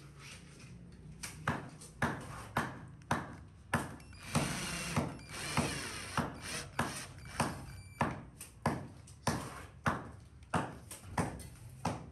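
Cordless drill driving a screw into a gypsum ceiling board: the motor runs for about a second and a half midway, and a long series of sharp clicks comes about twice a second.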